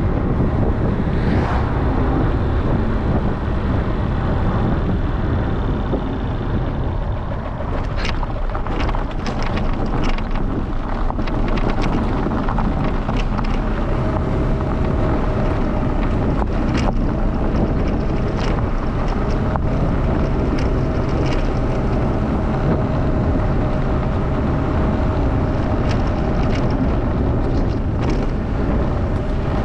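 Wind buffeting the microphone of a camera on a moving vehicle, over steady road rumble. From about eight seconds in, scattered sharp clicks and crackles join in as the tyres run over gravel.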